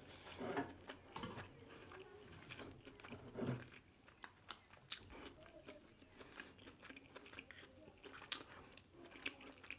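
Close-miked chewing and biting of grilled pork sekuwa and rice: a run of wet mouth clicks and small crunches at irregular intervals.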